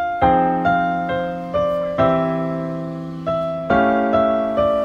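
Background piano music: chords struck about twice a second, each fading away before the next.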